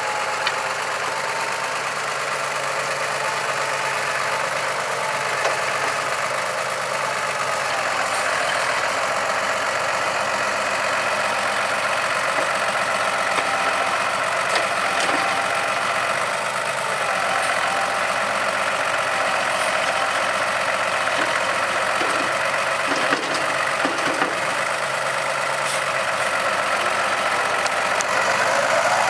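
Diesel engine of a New Holland tractor running steadily while its front loader works, with a few faint knocks in the second half.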